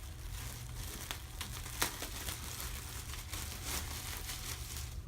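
Packaging crinkling and rustling with scattered small clicks as a T-shirt is taken out of the box and handled, over a steady low hum.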